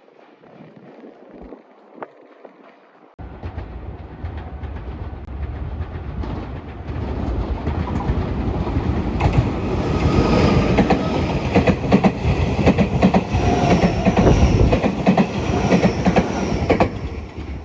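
Meitetsu electric train passing over a level crossing, wheels clacking over rail joints. It builds from about three seconds in, is loudest through the middle and latter part, and drops away near the end.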